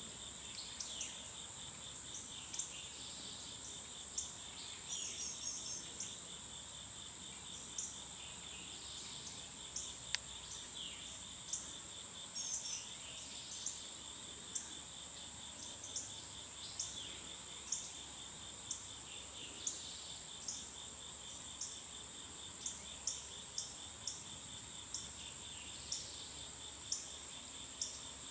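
Steady insect chorus: a continuous high-pitched buzz with a fast pulsing cricket trill beneath it, and short high chirps every second or so.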